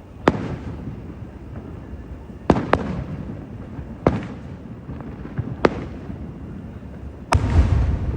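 Aerial firework shells bursting overhead: six sharp booms, two of them in quick succession, each trailing a low rumbling echo. The last boom, near the end, is the loudest and rumbles longest.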